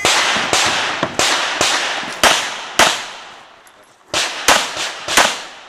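Pistol fired in a string of about nine shots: six quick shots roughly half a second apart, a pause of over a second, then three more. Each crack trails off in a short echo.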